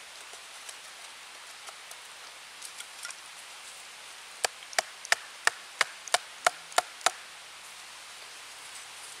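About nine sharp wooden knocks in an even run, roughly three a second, starting about four and a half seconds in: split kindling sticks being tapped down into a hollowed log. Fainter ticks and rustles of handling the sticks come before them.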